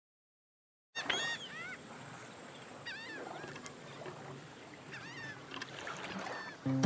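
Birds calling: clusters of short, arching chirps about a second in, around three seconds in, and again near the end, over a faint steady hiss. Just before the end a steel-string acoustic guitar starts fingerpicking, louder than the birds.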